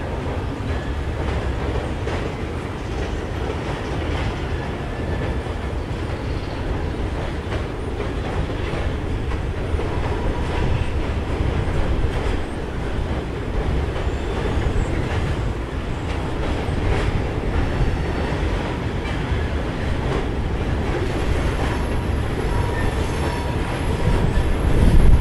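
Empty flatcars of a slow freight train rolling across a bridge: a steady rumble and clatter of steel wheels on the rails, with a faint wheel squeal about halfway through and again near the end.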